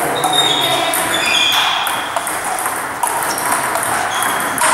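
Table tennis balls clicking rapidly off bats and tables, from several rallies going on at once, in a gym hall.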